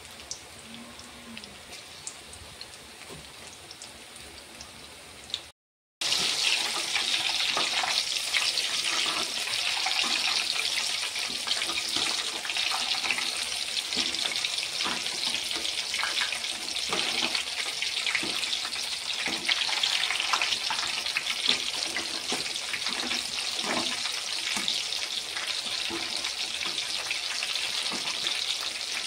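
Battered ridge gourd pakoras deep-frying in hot oil, a steady hiss of bubbling with crackles. After a brief break about six seconds in, it turns much louder: dense sizzling with many sharp pops.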